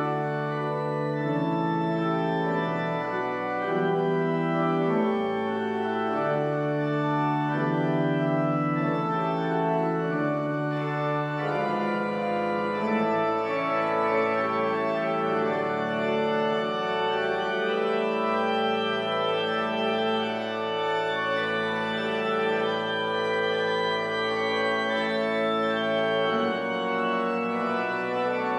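Church pipe organ playing slow, held chords. The deepest bass notes stop about twelve seconds in, and the music goes on in the middle and upper range.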